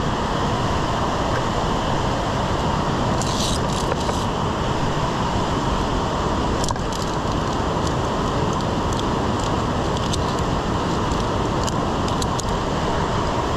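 Steady wind rumble buffeting an action camera's microphone, with a few short metallic clicks and clinks from climbing carabiners and lanyard against the steel cable and rungs, a cluster of them about three seconds in and another about seven seconds in.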